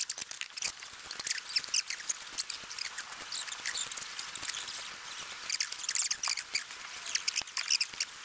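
Plastic bags and packaging crinkling and rustling in quick, irregular crackles as frozen food packs are handled.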